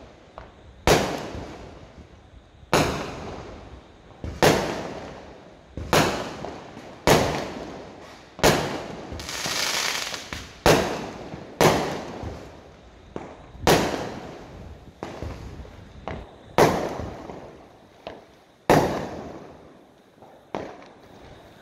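Aerial fireworks bursting overhead: about a dozen loud bangs, one every one to two seconds, each trailing off in echo. A crackling hiss from the sparkling stars fills the middle.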